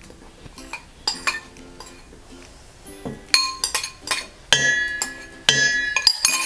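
Metal spoon clinking and scraping against a mixing bowl, several sharp ringing clinks in quick succession over the second half, loudest near the end.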